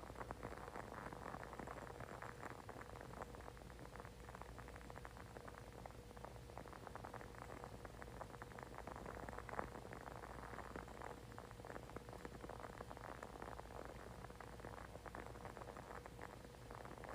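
A candle burning with a faint, dense crackle of tiny pops and clicks, over a low steady hum.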